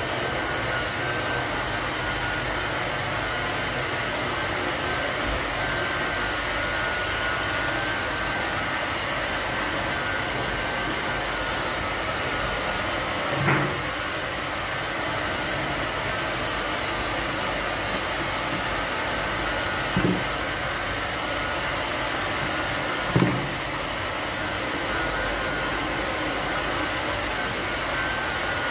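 A blower running steadily with an even whir, broken by three brief low knocks about halfway through and again about two-thirds and four-fifths of the way in.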